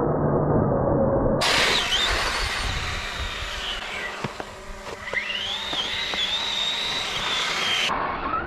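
Traxxas Slash RC truck's electric motor whining as it drives, the whine rising sharply in pitch about five seconds in as it speeds up, over tyre and gravel noise.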